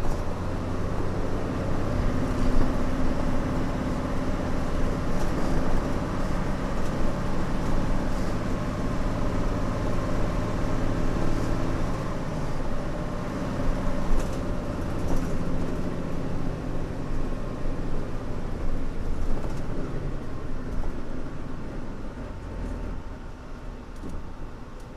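Fuso Aerostar bus's 6D24 straight-six diesel engine running under way, heard from inside the bus. The engine note shifts about halfway through and the sound grows quieter near the end.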